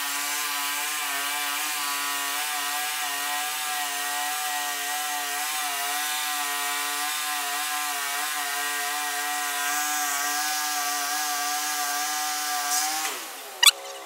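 Wood-Mizer LT15 Wide portable band sawmill sawing a log, its band blade running through a full-width cut past the bark with a steady, pitched hum. The sound drops away about a second before the end.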